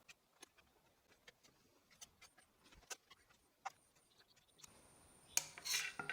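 A few faint, scattered ticks and light taps, with a short cluster of louder ones near the end: a nail being pressed into wooden boards to mark drill points.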